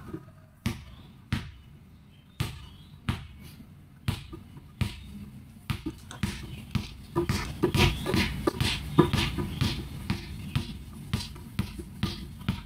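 Rubber basketball dribbled on a tiled floor, bounced to test it after being pumped up with more air. The bounces are slow at first, then speed up to about three a second from about halfway.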